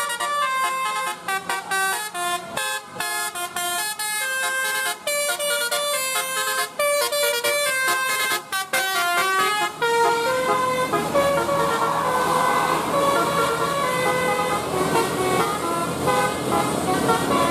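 Multi-tone musical vehicle horn playing a quick melody of short, stepping notes, with a rougher rushing noise joining underneath about ten seconds in.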